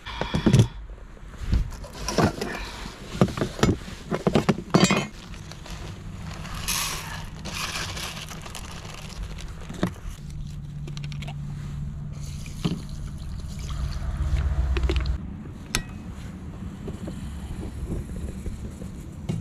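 Camping cooking gear being handled on a boat's plastic deck case: a quick run of sharp knocks and clicks at first, then scattered scrapes and clinks of a metal mess tin and a gas-cartridge stove being set out. A low steady rumble runs under the second half, strongest in the middle.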